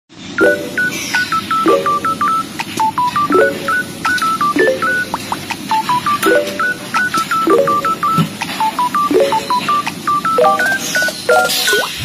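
Background electronic music: a quick melody of short beep-like notes over a chord that repeats about once a second.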